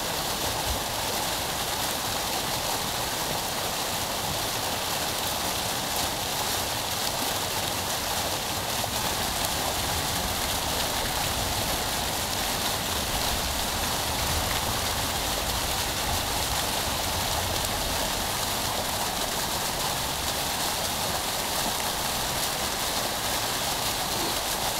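Fountain jets splashing steadily into their pool, a continuous rush of falling water.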